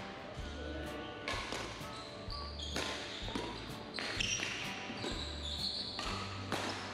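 Badminton rally on a wooden court: sharp racket strikes on the shuttlecock about every second and a half, with shoes squeaking on the floor and thuds of footfalls between the hits.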